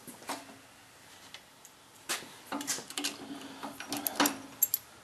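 Light metallic clicks, taps and scrapes of a drilled steel plate and drill-press vise being handled, most of them after about two seconds in. A faint low hum runs under the clicks for a second or two in the middle.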